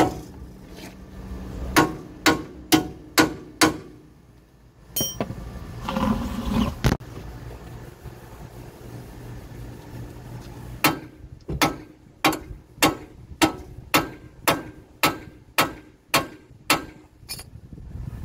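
Hammer blows on the steering knuckle of a Ford F-150's front suspension, struck to knock the upper ball joint loose: five blows at about two a second, a pause, then a steady run of about a dozen more.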